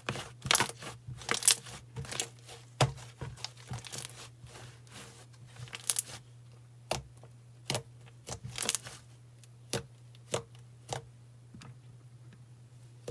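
Slime being squished and poked by hand: a scatter of irregular sharp clicks and pops with crinkly, tearing sounds, busier in the first half and sparser later, over a faint steady low hum.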